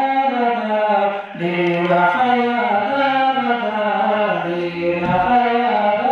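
A man's voice chanting a Pashto devotional nazam unaccompanied, in long held, wavering notes, with a short break for breath about a second in.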